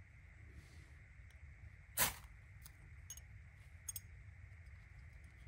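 A ferro rod struck once about two seconds in, a short sharp scrape that throws the sparks which light the fire starter in the kindling. A few faint ticks follow.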